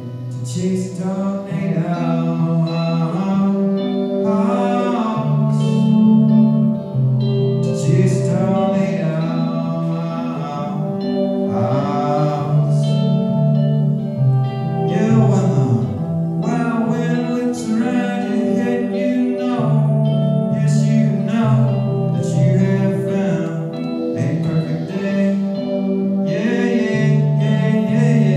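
Live song: a man sings over a guitar, with low notes that change every second or two beneath the voice. The sound echoes around a church interior.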